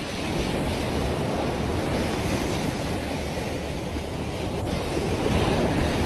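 Sea surf washing up the beach, with wind buffeting the microphone; a wave swells loudest near the end.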